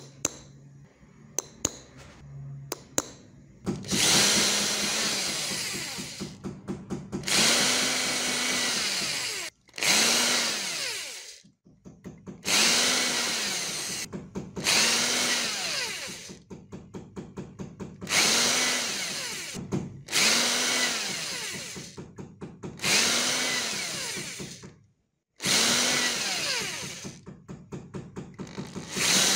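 A small electric drill boring holes through thin brass sheet in repeated bursts, about nine of them, each a couple of seconds long. In each burst the motor's hum rises and then drops away. A few sharp clicks come before the drilling starts.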